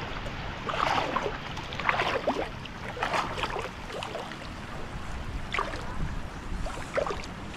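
Water sloshing and splashing in irregular surges, about one every second or two, over a low rumble of wind on the microphone.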